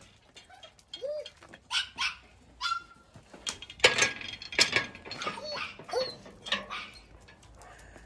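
A dog giving a few short whines and yips, with scattered sharp knocks, the loudest about four seconds in.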